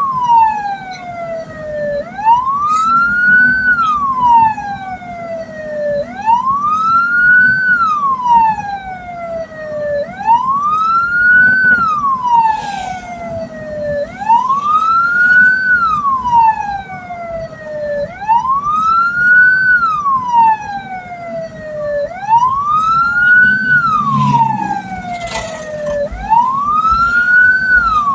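Hearse's electronic siren wailing in a slow rise-and-fall cycle, repeating about every four seconds, over a steady low vehicle hum.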